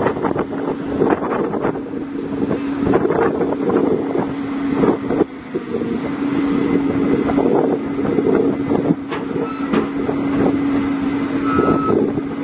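Komatsu PC200 excavator's diesel engine running with a steady drone, with scattered metallic clanks and knocks, most of them in the first few seconds. Wind buffets the microphone.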